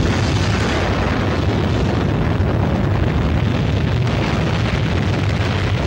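Depth-charge explosion: a sudden loud blast, then a dense, continuous rumble that holds steady.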